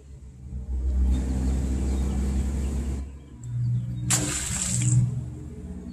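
A wire-mesh crawfish trap tossed into a pond, landing with a splash about four seconds in. Before it, a low rumble; throughout, background engine noise from traffic and lawn mowing.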